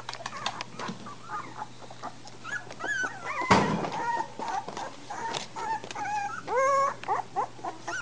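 Three-week-old American Bulldog puppies crying in short, high-pitched calls that bend up and down. A longer, louder rising cry comes near the end. A sharp bump sounds about three and a half seconds in.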